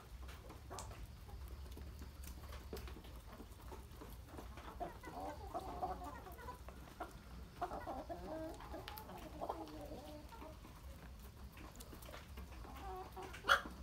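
A flock of chickens clucking as they feed, the clucking busiest in the middle. A single sharp knock near the end is the loudest sound.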